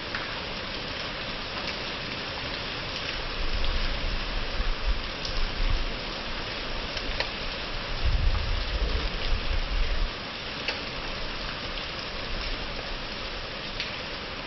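Heavy rain falling steadily, with scattered sharp taps of single drops. Two stretches of low rumble come through, about four and eight seconds in.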